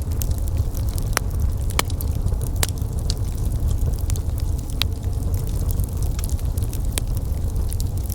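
Wood fire burning with a steady low rumble of flames and frequent irregular sharp crackles and pops.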